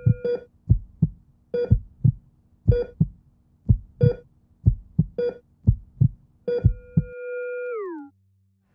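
Synthesized heartbeat sound effect from the title sequence: pairs of deep thumps about once a second, each with a short high electronic beep like a heart monitor. About seven seconds in, a long beep holds and then slides down in pitch before cutting off.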